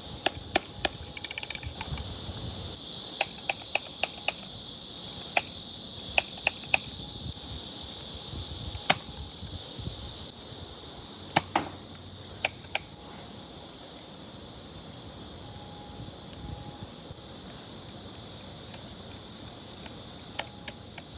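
Toy blaster being test-fired: about twenty short, sharp clicks in irregular groups with pauses between them, over a steady high hiss.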